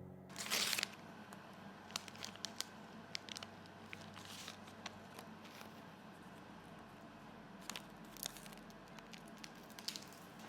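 Close-up handling sounds: a loud rustle about half a second in, then scattered small clicks and crinkles over a low steady hum.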